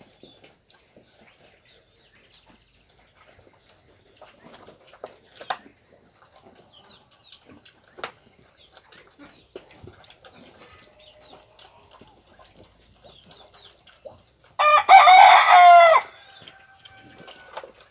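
A rooster crows once, loud and a little over a second long, about three-quarters of the way through. Before it, only faint scattered clicks and rustles of piglets eating from a feed bowl.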